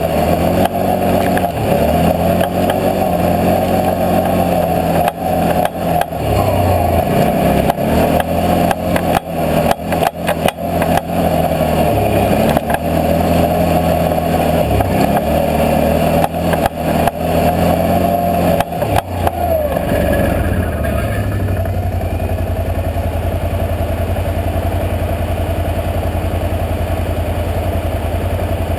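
Can-Am 650 XMR ATV's V-twin engine running on the move, its speed rising and falling, with sharp knocks and rattles from the bumps. About twenty seconds in it drops to a steady idle.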